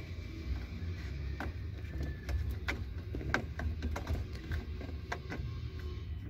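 Scattered small clicks and taps as a hand works a 12-volt cigarette-lighter socket in its dashboard hole, over a steady low rumble.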